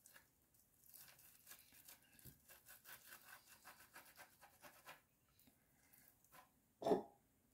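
Hard-boiled egg white being grated on a metal box grater: a quick run of faint scraping strokes, several a second, that stops about five seconds in. A single louder knock comes near the end.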